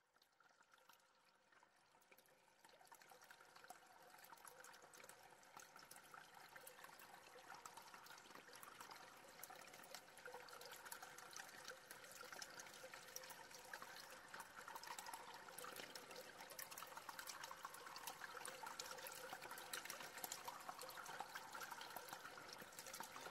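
Faint trickling, flowing water like a small stream, fading in from silence and growing steadily louder over the first few seconds.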